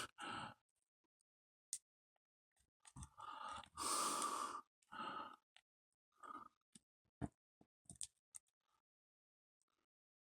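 Faint handling of a small plastic action-figure accessory: a few scattered small clicks as the parts are worked into place. A breathy sigh comes about three to four seconds in.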